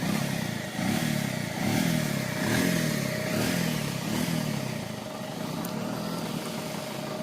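Motorcycle engine running, its pitch rising and falling about once a second for the first few seconds, then settling to a steadier, slightly quieter note.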